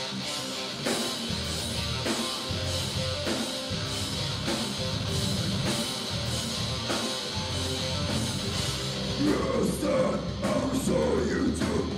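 Rock band playing live with electric guitar, bass guitar and drum kit. The singer's voice comes in about nine seconds in.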